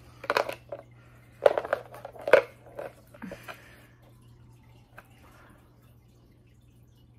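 Close handling noises: a few short knocks and rustles in the first three and a half seconds as a makeup palette and hand mirror are moved about, then near quiet over a low steady hum.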